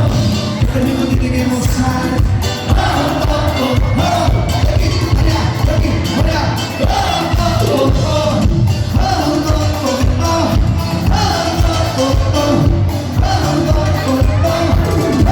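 A live cumbia band playing, with a singer over a steady bass-heavy beat.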